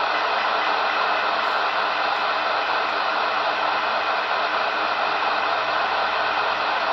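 Super Jopix 2000 CB radio's speaker giving a steady hiss of receiver noise, with the injected test signal weakened to the edge of the receiver's sensitivity, around −110 to −125 dBm, so it is nearly lost in the static.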